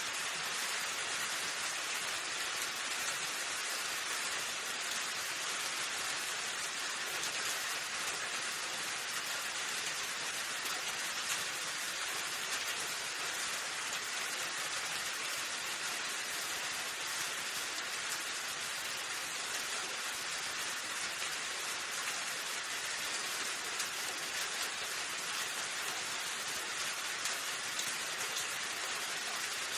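Steady rainfall: an even, unbroken hiss of rain falling on surfaces.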